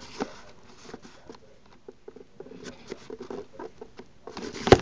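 Handling noise from a hand-held camera: fingers rubbing and tapping on the device, a run of small scratches and clicks, with one louder knock near the end.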